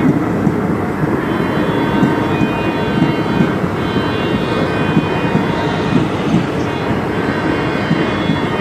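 Train running through a railway station: a loud, steady rumbling noise with several high tones held steady over it.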